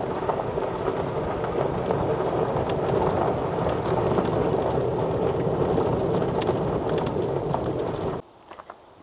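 Electric golf cart driving over a gravel and dirt yard: a steady crunching rumble of tyres on gravel with many small ticks, stopping abruptly near the end.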